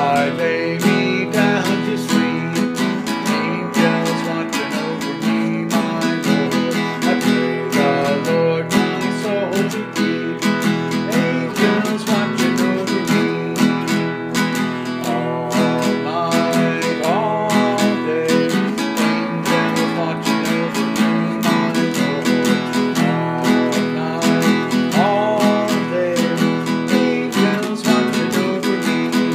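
Nylon-string classical guitar strummed in a steady rhythm.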